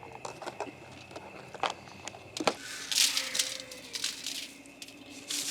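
Corn and black beans being spooned onto aluminium foil for a foil-packet dinner: a few sharp clicks and taps, then crinkling, rustling bursts of the foil about three seconds in and again near the end.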